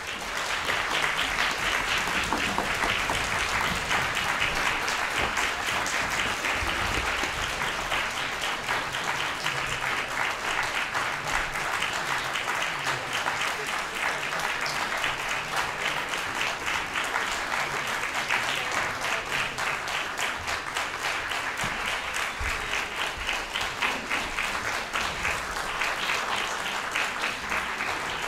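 Audience applauding, breaking out all at once and carrying on steadily.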